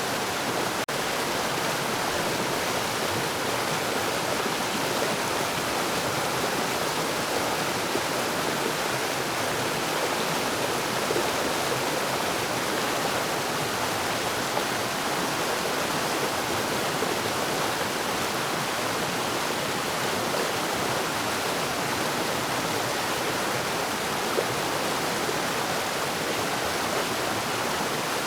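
Forest waterfall and its stream: a steady rush of falling and flowing water.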